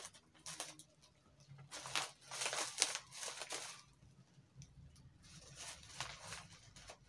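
Black plastic mailer wrapping crinkling and tearing as it is handled and cut open with scissors, in irregular rustling bursts that are loudest a couple of seconds in.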